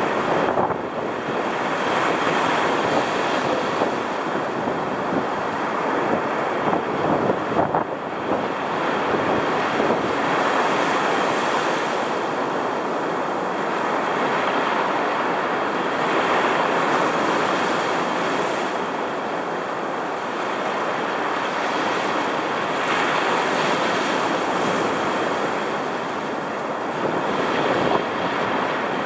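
Storm-driven ocean surf breaking and washing up a sandy beach during a strong cold front: a continuous rush that swells and eases every few seconds as each wave breaks.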